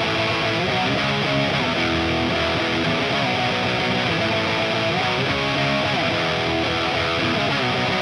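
Electric guitar, a 1987 Charvel Model 6, played through a modded 1978 Marshall Super Bass head into a 4x12 cab loaded with Celestion G12K-100 speakers. Sustained notes and chords are played at a steady level, with several notes bent in pitch.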